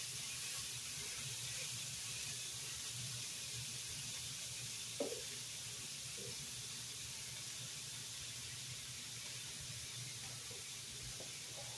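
Chicken breasts sizzling steadily in a hot pan, mixed with the bubbling of a pot of pasta water at a rolling boil. A single light clink of a utensil comes about five seconds in.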